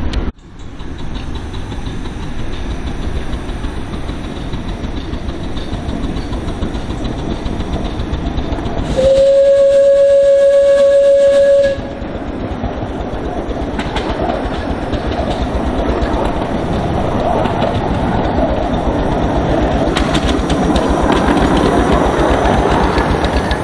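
10¼-inch gauge 4-4-2 steam locomotive running toward and past at close range, its exhaust and wheels on the rails making a steady noise that grows louder as it nears. About nine seconds in it gives one steady whistle blast lasting about three seconds.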